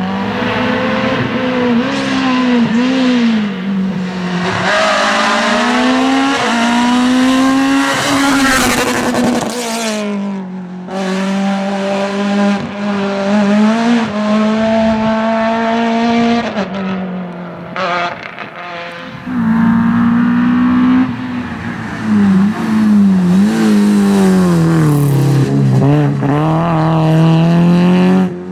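Rally cars driven hard on a special stage, engines revving up and down through gear changes as they pass, in several short clips cut one after another.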